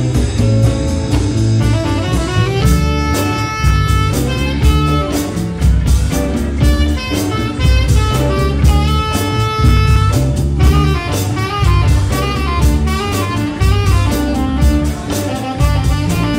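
Live band playing an instrumental passage: a Pearl drum kit keeping a steady beat under electric bass, electric guitar and keyboard, with a tenor saxophone playing held notes.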